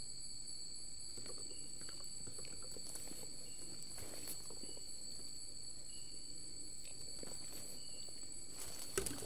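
Night insects keep up a steady, high-pitched drone of several constant tones, with a short chirp call every second or two. Soft rustling footsteps in leaf litter come and go, with a couple of heavier steps just before the end.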